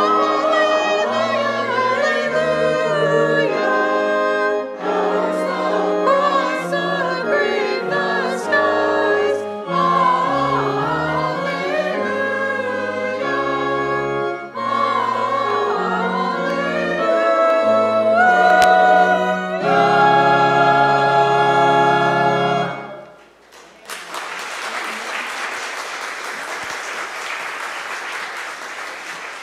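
Church choir singing a hymn with sustained instrumental accompaniment, ending on a held chord about two-thirds of the way through. Then the congregation applauds steadily until the end.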